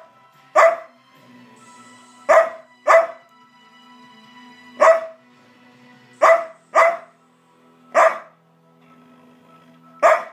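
Samoyed barking: eight short, loud single barks at uneven intervals, some in quick pairs, over faint background music.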